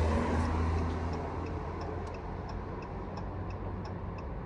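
A car's flasher relay ticking steadily, about two to three clicks a second, as with turn signals or hazard lights left on during a roadside stop. A low rumble underneath fades over the first couple of seconds.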